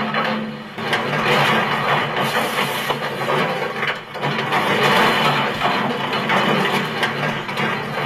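Scrap-yard material handler's diesel engine running under load while its hydraulic grapple crushes a Nissan Skyline, with the car's metal body crunching and crumpling in an irregular grinding noise.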